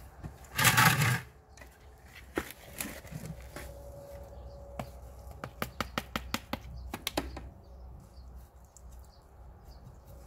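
Potting soil poured from a plastic scoop into a plant pot. There is a loud rush of soil about a second in, then a quick run of small sharp clicks and patters a few seconds later as more soil trickles off the scoop.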